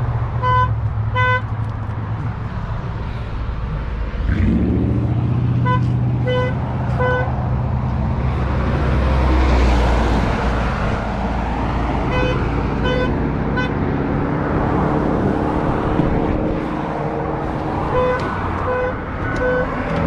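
A vehicle's electronic warning chime sounding in sets of three beeps, about every six seconds, over the rush of passing highway traffic and a low engine hum that comes in about four seconds in.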